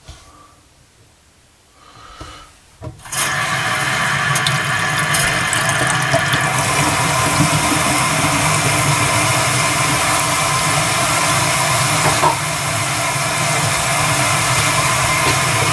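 Bathroom sink faucet turned on about three seconds in, water running steadily into the basin and down the drain: a leak test of the newly replaced pop-up drain assembly.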